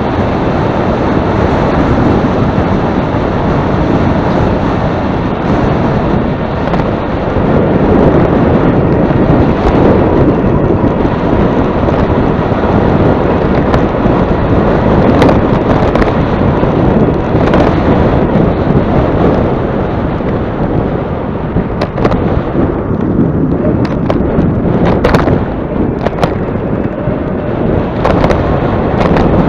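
Strong wind buffeting the microphone as a steady loud rumble, with a few short sharp knocks in the second half.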